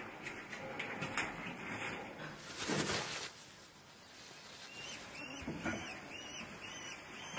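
Peregrine falcons calling: a quick run of short, high, rising calls, about three a second, starting about five seconds in. Before it come a few soft knocks and a brief rustle.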